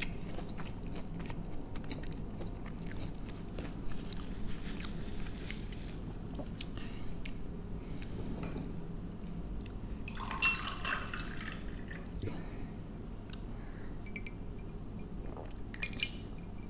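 A person chewing food close to the microphone, with small wet mouth clicks scattered throughout, over a steady low hum.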